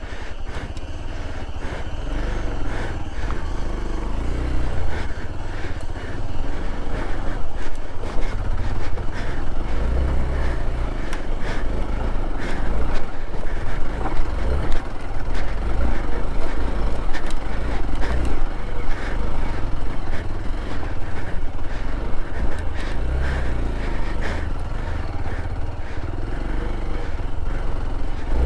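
Hero XPulse 200 4V's single-cylinder engine running as the motorcycle rides a rough off-road track. A heavy, uneven low rumble is broken by frequent knocks and rattles from the bumps.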